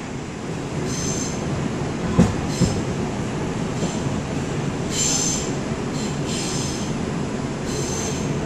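New York City subway 5 train heard from inside the car: a steady rumble with repeated short, high-pitched squeals of the steel wheels on the rails. Two sharp knocks a little after two seconds in are the loudest sounds.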